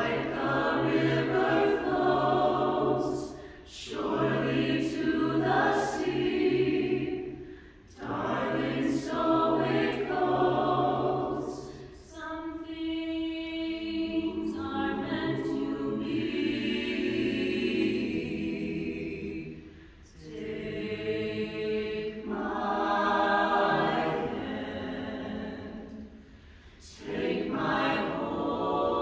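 Mixed-voice a cappella choir singing a song, phrase by phrase, with short breaks between phrases and a longer held stretch in the middle.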